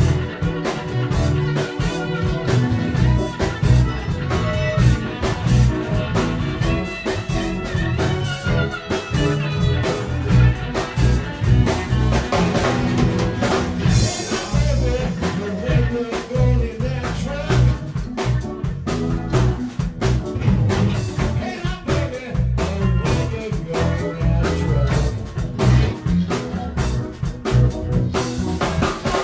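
Live band playing a blues boogie: drum kit, bass guitar, electric guitars and keyboards together.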